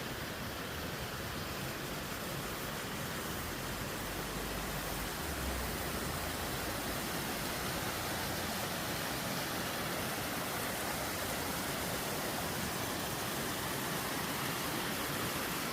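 Steady, even rushing noise, with a brief low rumble about five seconds in.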